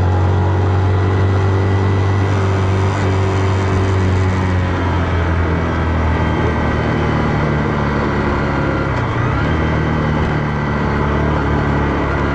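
Zontes X310's single-cylinder engine running steadily while the motorcycle cruises, with a small shift in engine pitch about nine seconds in.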